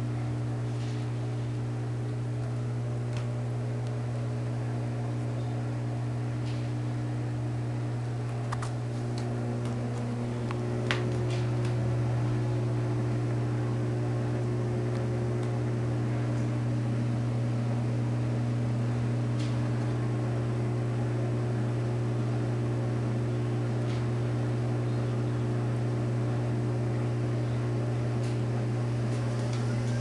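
Washing machine running with a steady low hum and several held tones; about ten seconds in the tones shift and the drone grows a little louder. A few faint clicks sound over it.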